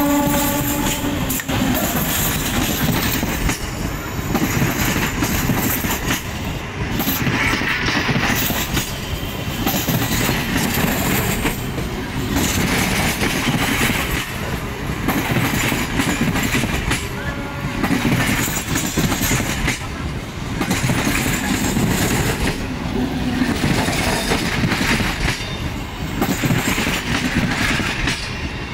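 Train wheels running on the rails: a steady rumble with rapid clickety-clack over the rail joints, swelling and easing every couple of seconds. A short pitched tone sounds in the first second.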